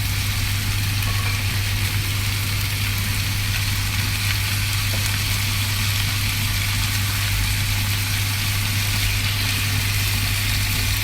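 Side vegetables sizzling in a frying pan, an even hiss, over a strong steady low hum.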